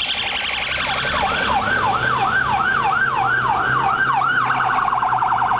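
Police car siren on the yelp setting: a wail that rises quickly and repeats about four times a second. A little over four seconds in it switches to a much faster warble.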